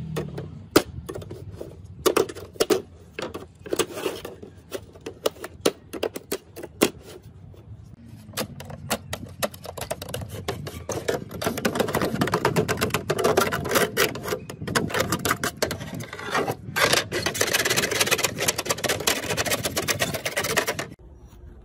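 Hand work on hard laptop parts: scattered sharp clicks and taps. From about eleven seconds in, a dense, continuous scratching and rubbing takes over and stops abruptly near the end.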